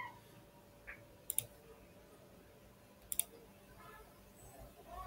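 Computer mouse buttons clicking: two quick pairs of sharp clicks, about two seconds apart.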